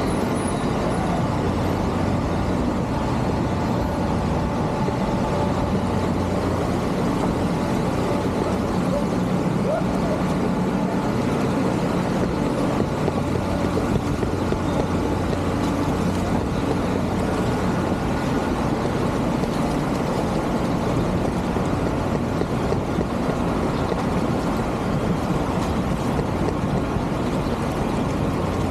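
A motor vehicle's engine running steadily with a low, even hum, under a constant rushing noise.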